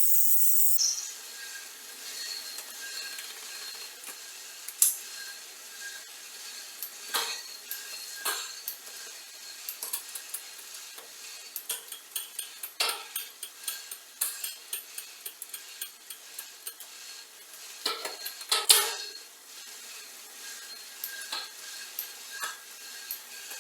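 Metal tools and bicycle parts clinking, tapping and knocking irregularly, with a louder knock about five seconds in and another near nineteen seconds. It opens with a loud hiss lasting under a second that cuts off suddenly.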